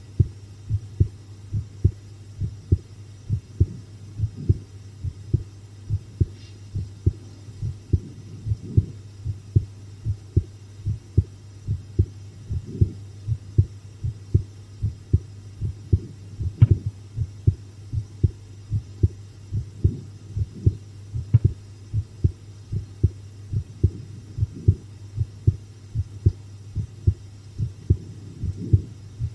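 Close-miked human heartbeat: a steady run of lub-dub thumps over a low hum. Faint clicks come about 6, 17 and 21 seconds in.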